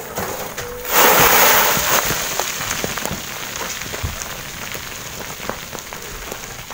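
A wheelbarrow load of stones and gravel tipped over a slope: a sudden loud rush of tumbling rock about a second in, then scattered clattering and knocking of stones rolling down the loose gravel, slowly fading.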